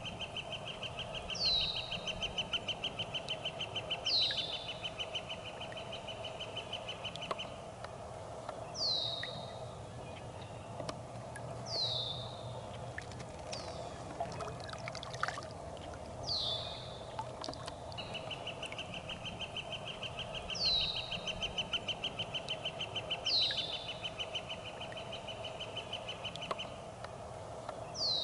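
Birds calling: a short downward-slurred call repeats every few seconds, with a long rapid trill at one pitch that runs for several seconds, stops, and starts again past the middle.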